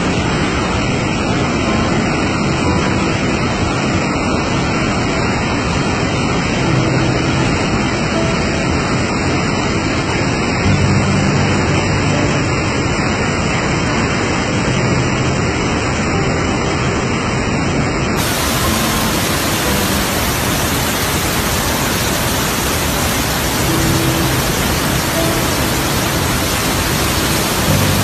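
Steady, loud rushing roar of Iguazu Falls, a huge volume of water plunging over the cliffs. About two-thirds of the way through, the rush suddenly turns brighter and hissier.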